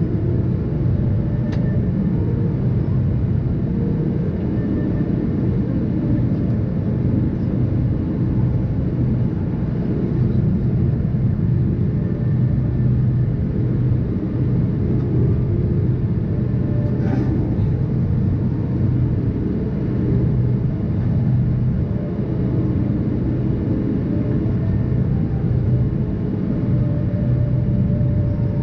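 Steady jet airliner cabin drone heard from a window seat: turbofan engine and airflow noise with a constant low hum.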